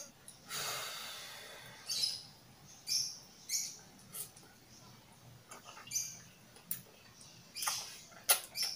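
Mouth sounds of eating kimchi ramen: one long slurp of noodles about half a second in, then wet chewing and lip-smacking clicks off and on.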